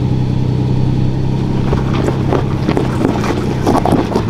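Toyota Tacoma V6 engine running under load on a rock climb, a steady drone, with the tyres spinning and crunching on loose rock and gravel from about two seconds in.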